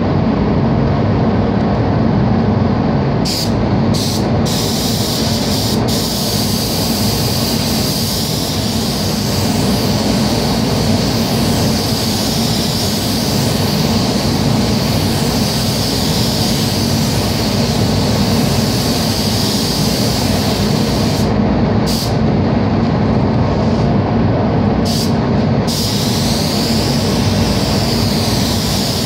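Gravity-feed automotive paint spray gun hissing as it sprays: a few short blasts at first, then a long steady spray, a few more short bursts, and a steady spray again near the end, over the steady low roar of the spray booth's air flow.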